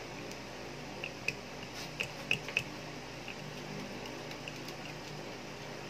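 Small sharp plastic clicks and taps from handling the black air-pump cylinder of a spring airsoft pistol while plastic shims are pressed into it. A cluster of clicks comes about one to two and a half seconds in, with a few fainter ones later, over a steady background hum.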